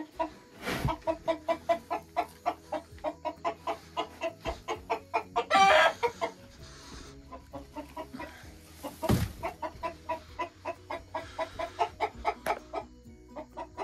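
Chicken clucking in a quick, even series, about four clucks a second, with one louder squawk a little before the middle. Two dull thumps, about one second in and again about nine seconds in.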